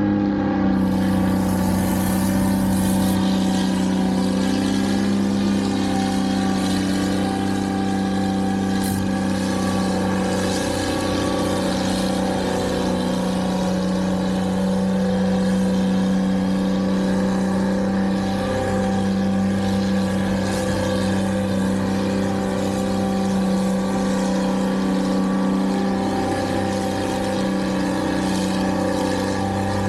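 Engine of snow-removal machinery running steadily at a constant pitch, with no revving or stopping.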